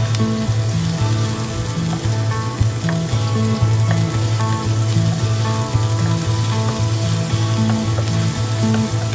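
Minced garlic sizzling in hot oil in a non-stick wok as a wooden spatula stirs it, over background music with a repeating bass line.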